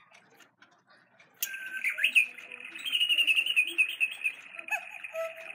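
Battery-operated cuckoo clock's cuckoo chime setting going off about a second and a half in: recorded birdsong played through the clock, a steady stream of warbling chirps with short separate calls below it.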